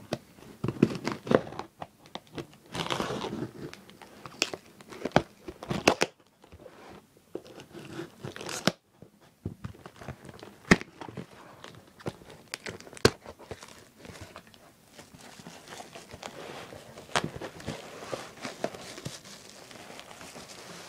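Parcel packaging being torn open by hand: irregular tearing, rustling and crinkling with sharp snaps.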